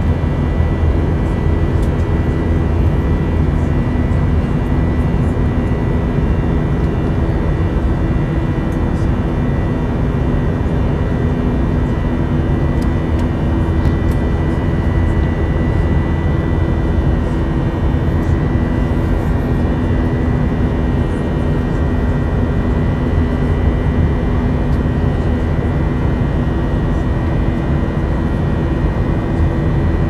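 Jet airliner cabin noise in cruise, heard from inside the cabin: a steady low drone of engines and airflow, with several constant hum tones running through it.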